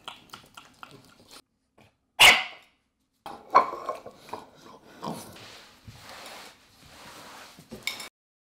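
French bulldog puppies barking: one loud bark about two seconds in, then further barks and softer snuffling noises as they crowd around, cutting off abruptly near the end.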